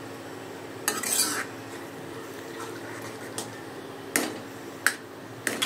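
A spoon stirring and scraping besan kadhi in an iron kadhai: a scraping rush about a second in, then a few sharp clinks of the spoon against the pan near the end, over a steady low hum.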